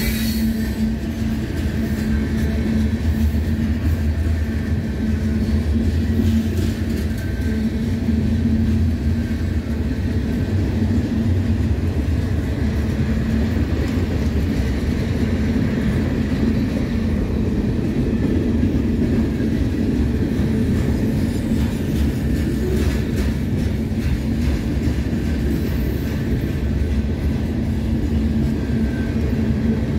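Freight cars of a CSX mixed manifest train rolling steadily past at very slow speed, a continuous low noise of steel wheels on rail with a constant hum.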